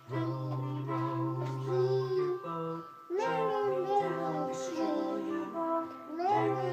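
A children's song playing, steady instrumental notes over a bass line, with a singing voice coming in about three seconds in and again near the end.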